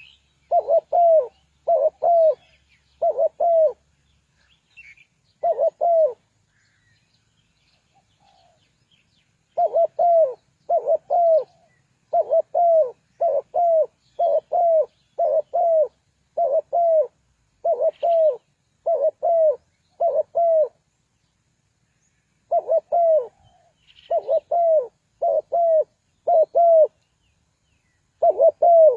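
Spotted dove cooing: repeated low coos that rise and fall, mostly in pairs and short runs. They break off for several seconds about six seconds in, and briefly again later.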